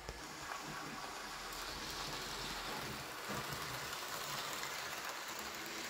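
Bachmann OO gauge model steam locomotive running along the track with its coaches: a steady rolling noise of wheels on rail and the motor.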